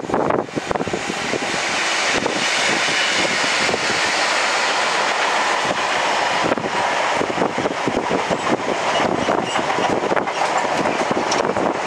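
A train passing close by at speed: a steady rush of steel wheels on rail with many short clicks, building up over the first two seconds and then holding.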